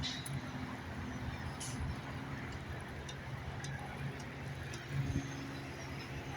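An engine running steadily at a constant pitch, with a few faint clicks over it.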